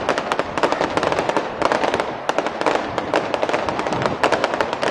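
Aerial fireworks crackling overhead: a dense run of sharp pops and crackles in quick, irregular succession.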